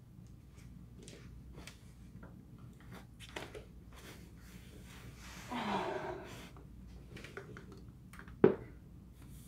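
Quiet footsteps and movement of a person walking across a room and settling onto a floor cushion, with a longer shuffling swell a little past the middle and one sharp knock near the end.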